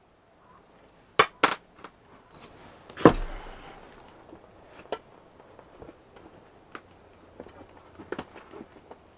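Sharp knocks and clacks from fitting a stove-pipe flashing into the flue opening in a canvas tent roof: two quick knocks about a second in, one heavy knock with a low thud about three seconds in, then scattered lighter taps and a double knock near the end.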